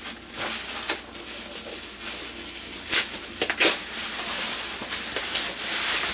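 Rustling and crinkling of packaging being handled and unwrapped, with a few sharp crackles about three seconds in.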